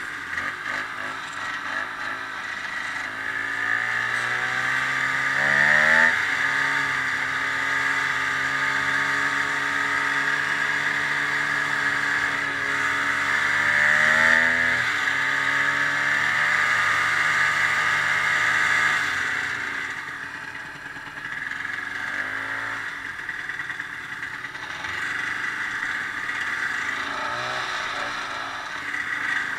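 Ski-Doo snowmobile engine under way: the revs climb twice, hold steady at speed, ease off about two-thirds of the way through, then pick up again, over a constant hiss.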